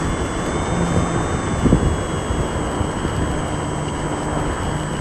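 Small RC airplane's electric motor and propeller running steadily in flight over a rush of air, with a short thump about two seconds in.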